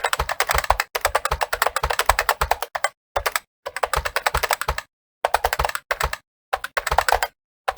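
Fast touch-typing on a computer keyboard: rapid keystroke clicks in runs of a second or two, broken by short pauses.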